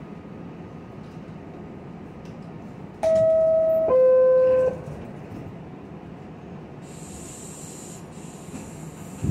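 A train horn sounds two held notes about three seconds in: a higher note for just under a second, then a lower one for under a second. Steady background noise runs underneath, and a high hiss starts about seven seconds in.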